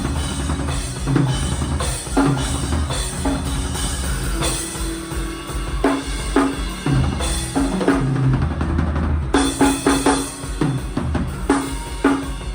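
Drum kit playing, kick and snare strikes over a sustained low bass part, settling into a tight, even beat about two-thirds of the way through, during a live sound check.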